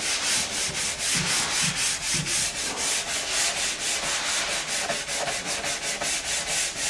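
A brush scrubbing back and forth along a ski base in quick, even strokes, several a second, working wax remover into the old wax.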